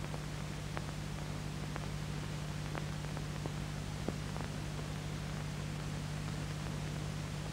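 Steady tape hiss with a constant low hum and a few faint scattered clicks: the blank, unrecorded audio track of an old VHS tape.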